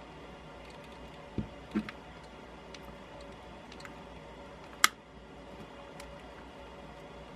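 Scattered clicks and taps of a small screwdriver working a hidden screw loose from a drone's plastic shell: two soft knocks about a second and a half in, then one sharp click a few seconds later.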